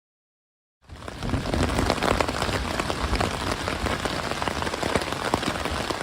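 Steady, heavy rain falling, many individual drops striking a surface close to the microphone, starting abruptly about a second in.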